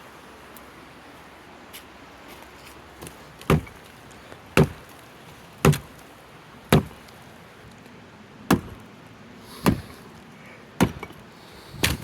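Freshly sharpened old hatchet chopping into wood as a test of its edge: eight sharp strikes about a second apart, starting a few seconds in, with a short pause midway.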